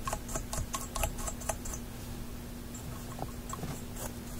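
A toothbrush scrubbing the pins of a 6C33 power tube: quick, scratchy bristle clicks, thickest in the first second and a half and then sparser. It is an attempt to brush off the corrosion built up on the pins.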